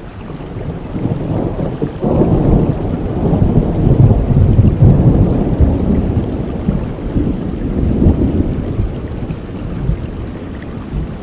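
Steady rain with a long roll of thunder that builds about two seconds in, is loudest near the middle and rumbles away toward the end.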